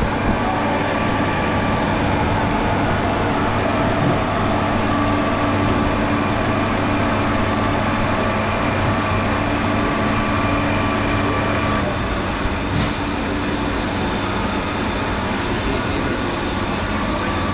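A steady mechanical drone with a constant hum under a broad hiss, like a motor or engine running without a break. The higher hiss drops away about twelve seconds in while the hum carries on.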